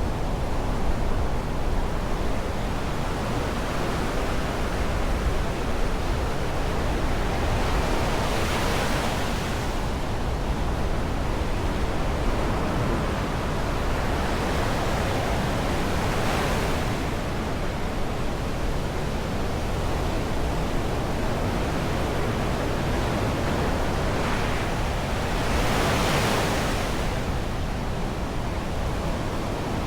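Black Sea surf on the shore: a steady rush of water, with three waves breaking and washing in, about 8, 16 and 26 seconds in.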